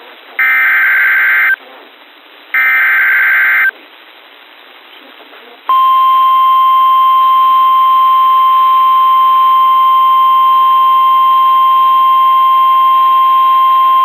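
NOAA Weather Radio emergency alert: two loud one-second bursts of SAME header data about a second apart, then, after a short pause, the steady 1050 Hz Warning Alarm Tone starting about six seconds in and still sounding at the end. It heralds a new Severe Thunderstorm Warning broadcast.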